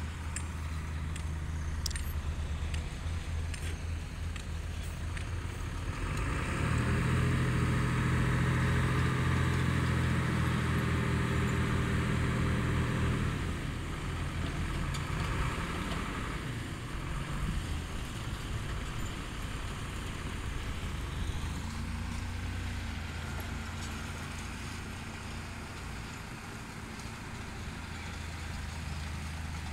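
Dump truck's diesel engine idling, then revving hard for about seven seconds as it drives the hydraulic hoist raising the loaded tipper bed, before dropping back to a steady idle.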